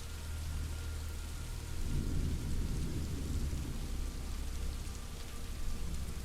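Steady rain hiss with a low roll of thunder that swells about two seconds in and fades over the next few seconds.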